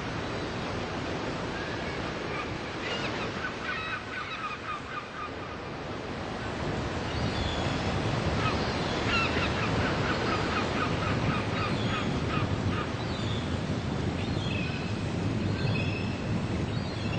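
Surf washing onto a beach, with seagulls calling again and again over it from a few seconds in. The surf swells louder about seven seconds in.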